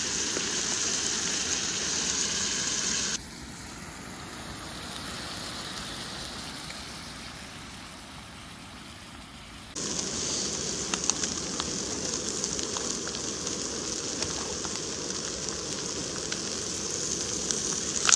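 A thick steak sizzling in a frying pan on a gas-canister camping stove: a steady frying hiss with a few pops after the middle. The hiss drops quieter for several seconds in the middle, then comes back abruptly.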